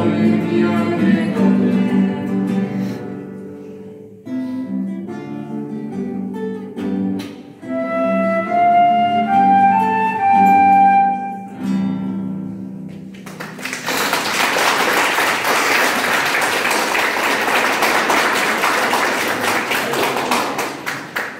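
Classical guitar accompanying a voice singing, then a flute playing a rising closing phrase over the guitar. About two-thirds of the way through, applause breaks out and continues.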